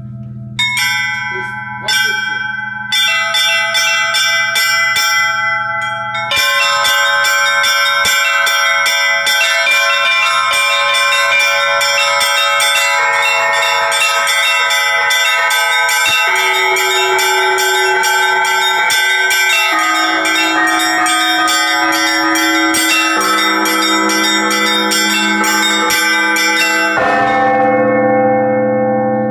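Russian church bells rung by hand by a bell ringer. It starts with a few separate strokes, and from about six seconds becomes a fast, steady chime of the small high bells over the ringing middle bells, with deeper bells joining later. Near the end the small bells stop for a moment, leaving the larger bells ringing.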